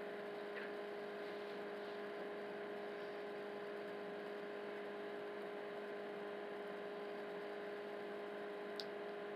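Steady electrical hum with a constant low tone, unchanging throughout, and one faint click near the end.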